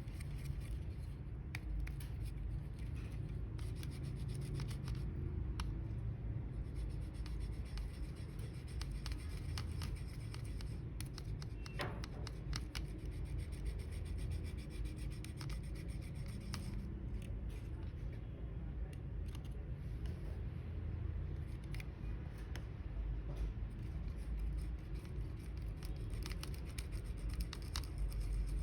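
Scattered small clicks, scratches and rubbing of hands working on the small plastic parts of a Logitech G903 wireless mouse during a battery swap, over a steady low hum.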